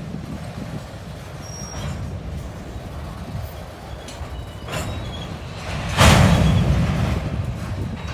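Freight train of covered hopper cars rolling past, a steady low rumble of wheels on rail with a few faint brief wheel squeals and knocks. About six seconds in, a sudden loud rush of noise swells up and fades over a couple of seconds.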